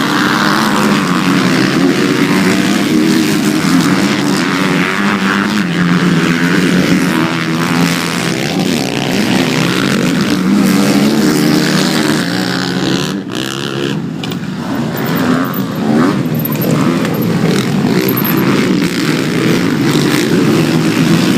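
Motocross dirt bike engines racing, revving up and down as the bikes ride the track.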